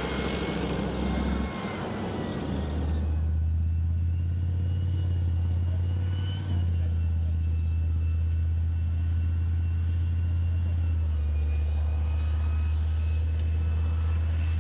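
Gepard self-propelled anti-aircraft tank driving: engine and track noise that is loud and rough for about three seconds, then settles into a steady deep rumble with a faint high whine.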